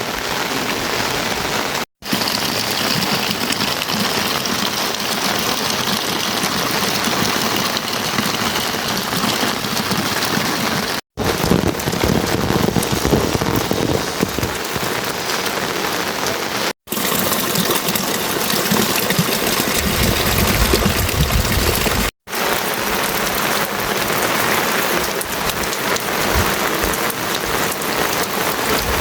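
Steady heavy rain pattering down, a dense even hiss broken four times by an abrupt instant of silence where the recording is cut.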